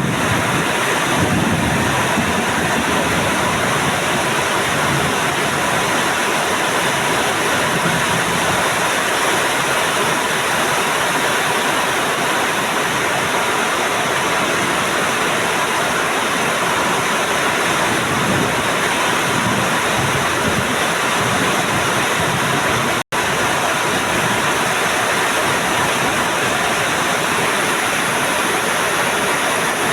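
Heavy rain pouring down in a steady, loud downpour, with a momentary break in the sound about three-quarters of the way through.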